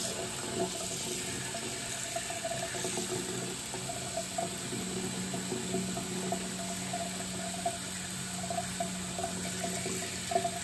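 Bathroom sink faucet running steadily, its stream splashing into the basin over hands washing a wet kitten.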